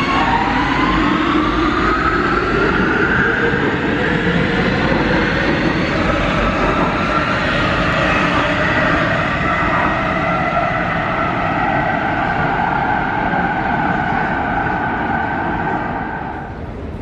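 Warsaw Metro train pulling out of a platform: the electric traction drive whines and rises in pitch over the first few seconds as the train accelerates, over the running noise of the wheels on the rails. It then holds steady and drops off near the end.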